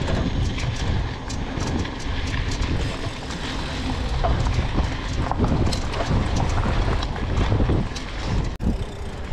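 Riding noise from a Raider Z3X Pro 29er mountain bike: wind buffeting the microphone, with the tyres and bike rattling over a rough surface in many small clicks.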